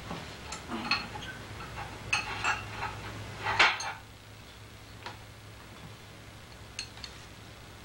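Kitchen dishes and utensils clinking and clattering, busiest in the first four seconds, then a few light clicks as a bowl and spoon are handled.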